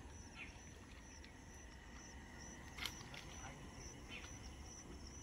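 Faint rural outdoor background: a steady, rapidly repeating high chirping, with a few brief soft knocks, the most distinct a little past halfway.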